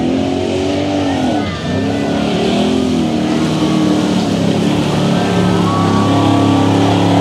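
Square-body Chevrolet mud truck's engine revving hard as it churns through a mud pit. The pitch swings up and down, drops sharply about a second and a half in, then climbs and holds high near the end.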